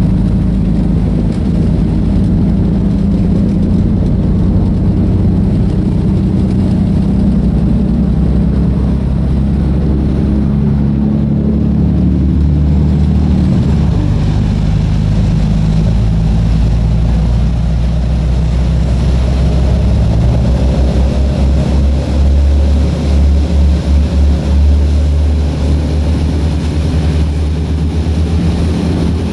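Boat engine running at cruising speed, a steady low drone with the rush of the churning wake over it. About two-thirds of the way through, the low rumble pulses unevenly for a few seconds.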